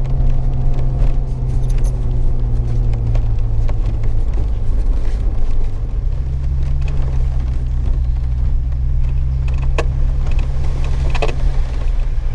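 Vehicle driving: a loud, steady low engine and road drone, with a few sharp rattles or clicks near the end.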